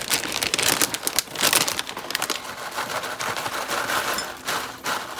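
A crinkly snack bag rustling and crisp tortilla strips being shaken out onto a salad, a dense run of crackles and light taps.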